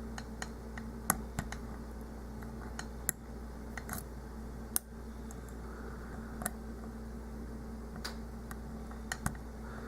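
Light, irregular metallic clicks from a lock pick and tension wrench working the pins of a Master Lock Pro Series 6835 padlock; the clicks are the sort that serrated pins give, which the picker is almost certain this lock has.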